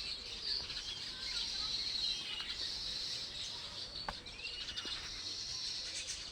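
Many birds chirping and calling at once, with short whistled notes sliding up and down over a steady, dense high chorus. There is one sharp click about four seconds in.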